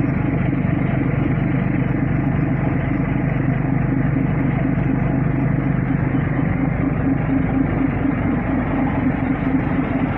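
Steady drone of a passenger ferry's engines, heard from the open deck as the ship pulls away from the pier. The tone shifts slightly about halfway through.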